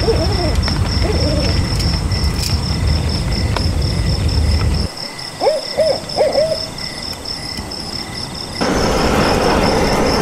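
A bird calling: a quick run of about four short hoots, each rising and falling in pitch, about halfway through, with fainter calls at the start. A steady low rumble underneath stops about five seconds in, and a broad hiss comes in near the end.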